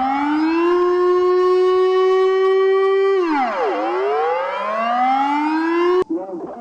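Dutch civil-defence warning siren winding up to a steady pitch, holding it, sliding down and winding up again, then cutting off abruptly near the end, where a quieter, different sound takes over.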